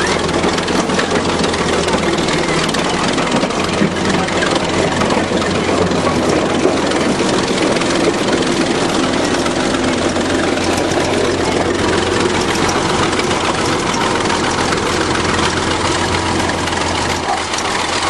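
Old crawler bulldozer under way: its engine running steadily with a low hum, and a constant fine clatter from the moving steel tracks.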